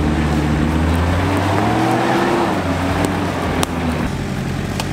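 Off-road 4x4's engine pulling under load through a deep rut, its pitch climbing slowly and then falling away about two and a half seconds in. The sound changes abruptly a little over a second later, to a steadier engine tone.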